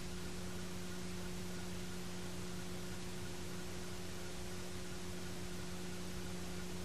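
Steady tape hiss with a constant low electrical hum from a VHS transfer; no game sound or voices are heard.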